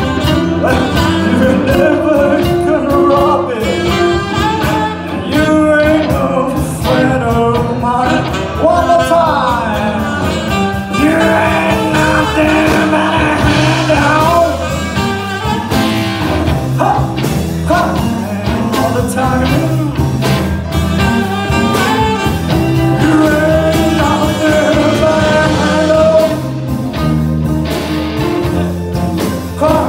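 Live band playing, with electric guitar, drums and electric keyboard under a man singing lead.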